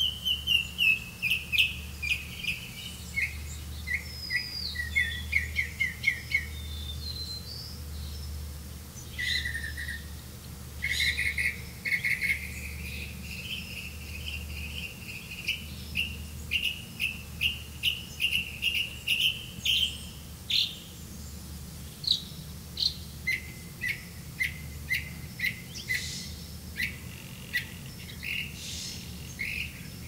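Small songbirds chirping: runs of short, high chirps, several a second, repeating in bursts with brief gaps.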